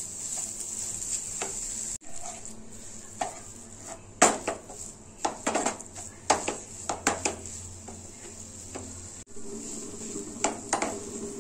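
Wooden spatula scraping and tapping against a nonstick kadhai as a thick coconut and milk mixture is stirred, a quick irregular run of strokes, loudest about four seconds in. A steady high hiss runs underneath.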